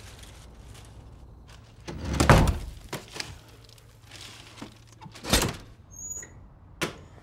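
A wooden door taking two heavy thuds, about two seconds and five seconds in, with a few lighter knocks between them and a sharp click near the end.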